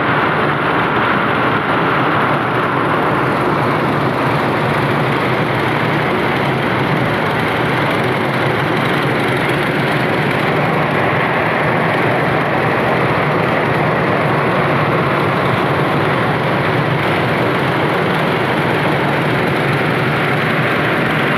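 Rice mill running steadily: a constant, unchanging machine din while milled rice pours out of its discharge chute.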